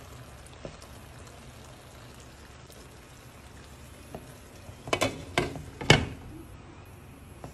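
Pan of paksiw na lechon simmering with a steady soft bubbling hiss. About five seconds in, a glass pot lid clatters three times against the metal pan as it is set down on the rim, the third knock the loudest.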